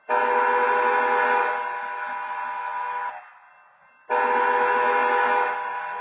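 Railroad horn sounding two long blasts of about three seconds each, a second apart, a chord of several steady tones; the second blast is still sounding at the end.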